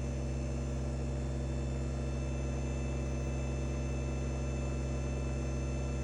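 Kubota BX24 compact tractor's three-cylinder diesel engine running at a steady speed, with no change in pitch or level.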